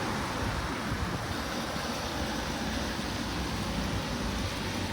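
Steady city road-traffic noise, a continuous rumble and hiss with no single vehicle standing out.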